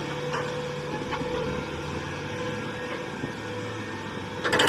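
A heavy vehicle's engine running steadily, a low even hum.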